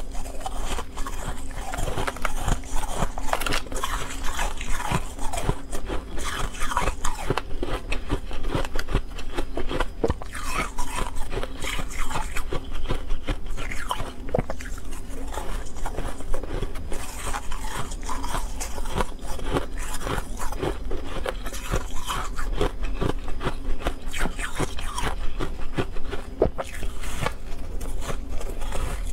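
Freezer frost crunching: fingers scraping and grabbing loose frost in a plastic tub, and teeth biting and chewing clumps of it, a dense continuous crackle of many small sharp crunches.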